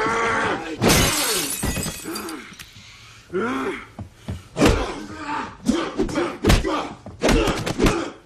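Film fight sound: a crash of shattering glass about a second in, men's grunts and strained shouts, then a rapid run of punch and body-blow thuds through the second half.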